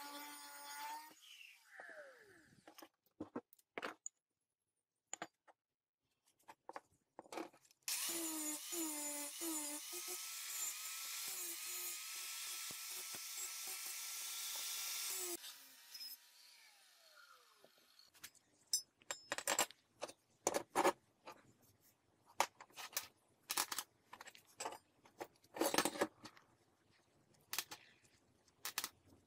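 Angle grinder running and grinding steel. A cut ends and the disc winds down in the first second or two. Then it grinds a small flat steel bar with a steady whine for about seven seconds and winds down again. After that come light clinks and knocks of steel bolts and nuts being handled on a bench.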